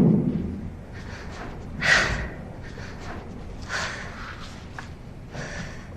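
A person breathing audibly: a few separate heavy breaths or sighs, about one every two seconds, after a short noisy hit at the start.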